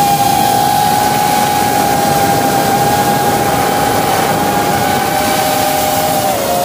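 The brushless motors and propellers of a 3-inch FPV racing drone whining steadily, heard close up from the drone's own camera, over a rushing hiss. The pitch steps down slightly near the end.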